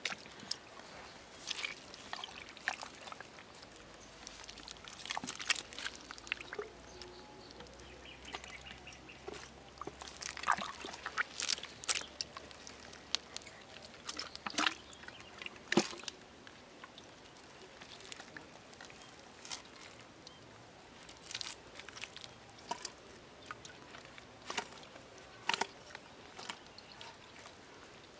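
Muddy water in a dug hole splashing and squelching in short irregular bursts, among eel-like fish in the mud.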